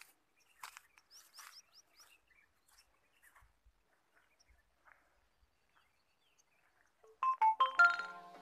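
Faint scattered rustles and a few short bird chirps, then about seven seconds in a loud bright chime jingle, a quick run of ringing bell-like notes, the added sound effect of a subscribe-button pop-up.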